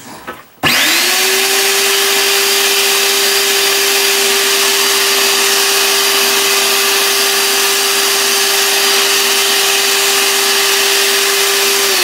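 Hoover Sprint QuickVac upright vacuum cleaner switched on just under a second in: its motor spins up quickly to a steady high whine and runs evenly, then begins to wind down at the very end.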